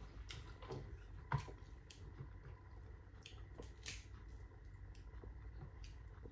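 Faint scattered clicks and soft squelches of food being handled, with one sharper click a little over a second in.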